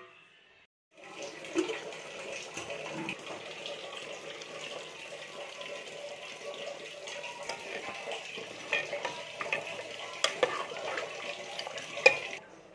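Thin coconut paste poured from a jar into a pot of gravy, a steady liquid splashing with scattered clinks of metal utensils and one sharp clink near the end.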